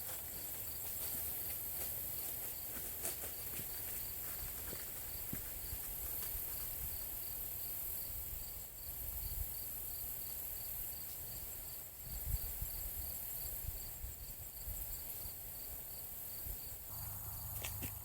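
Outdoor insect chorus: a steady high-pitched trilling with a cricket chirping evenly, about two to three chirps a second, over a low rumble and a few soft rustles and clicks.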